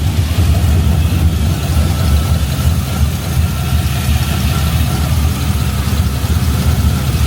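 Freshly swapped LS V8 in a 1988 Ford Bronco idling steadily on its first run, through a true dual stainless exhaust. The lifters are no longer clicking, a sign that the engine has built oil pressure.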